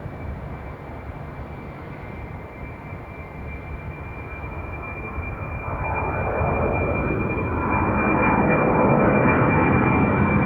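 Jet airliner's engines at takeoff thrust, with a steady high whine over the rumble, growing steadily louder as the plane comes closer.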